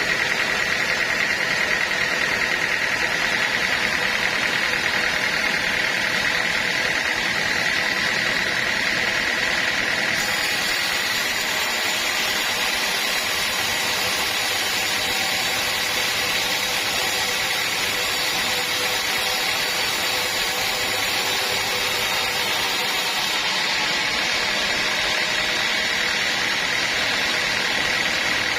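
Sawmill machinery running steadily: a continuous mechanical noise with a high tone held throughout.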